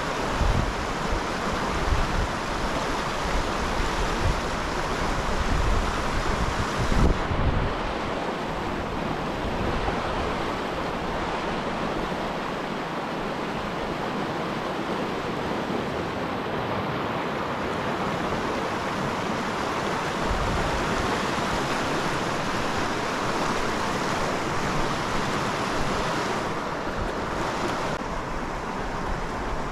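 Steady rush of the South Platte River's fast current, running a little high. Wind gusts buffet the microphone with a low rumble during the first seven seconds and again from about twenty seconds in.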